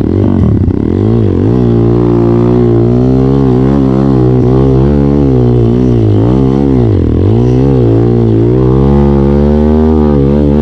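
Trail motorcycle engine running steadily, its pitch dipping and climbing again as the throttle is eased off and reopened, once near the start and again about seven seconds in.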